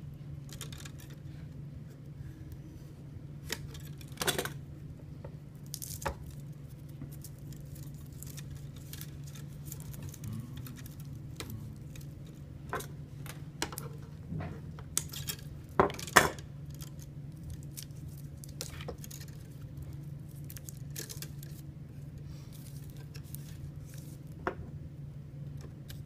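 Small clicks, snips and rustles of nonmetallic (Romex) electrical cable being stripped by hand with an electrical knife and diagonal cutters, with the wires and tools tapping the metal electrical boxes. The sharpest snaps come about four seconds in and again about sixteen seconds in, over a steady low hum.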